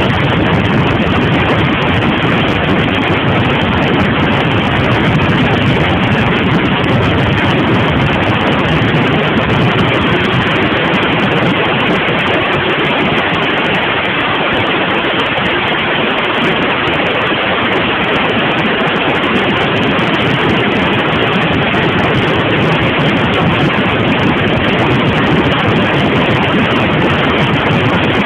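Steady, loud rush of wind on the microphone of a Suzuki TL1000R sport motorcycle riding at speed, with the bike's running engine mixed into the noise.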